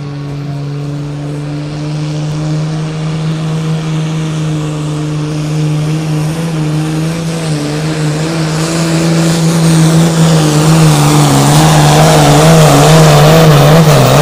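Super Sport class pulling tractor's turbocharged diesel engine running flat out under load as it drags the weight sled, holding a steady note and growing louder as it comes nearer. Over the last few seconds the engine note wavers up and down.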